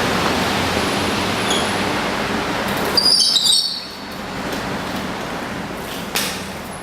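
BMX bike rolling over pavement with steady tyre noise, and a brief high squeal about three seconds in, then quieter rolling and a sharp click near the end.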